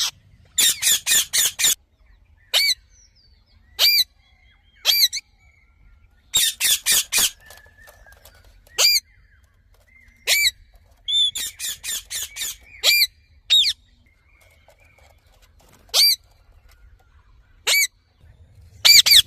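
Green parrot squawking: short high-pitched calls, some single and some in quick runs of four or five, with pauses between.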